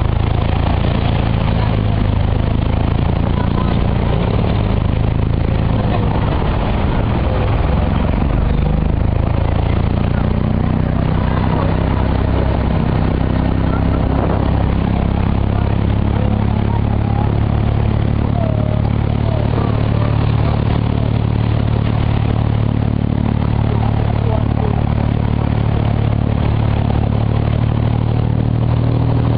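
Engine of an abra water taxi running steadily under way: a loud, even, low engine hum with a constant pitch.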